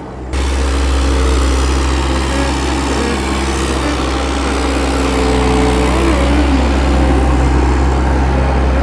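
An engine running steadily, a loud low hum with a few faint wavering higher tones over it.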